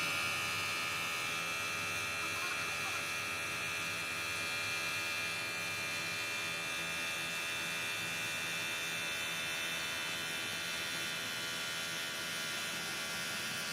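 A workshop machine's electric motor running steadily with a high whine that holds at one pitch and level.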